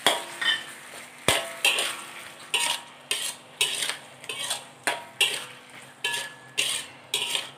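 Metal spatula scraping and stirring bitter beans through thick chilli sambal paste in a metal wok, about two strokes a second, with one sharper clink of metal on the pan about a second in.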